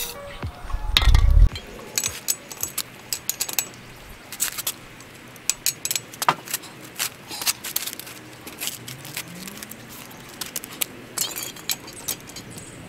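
Metal clicks and clinks of an L-shaped lug wrench turning the lug nuts on a car's steel wheel, irregular and scattered, as the nuts are worked loose. A short low thump about a second in.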